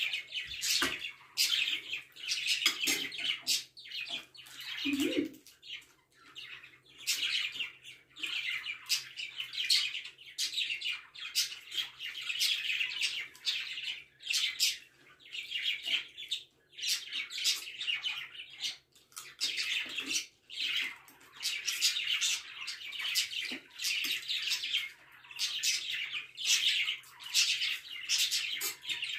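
Pet birds chirping in quick, high calls, over and over with short pauses.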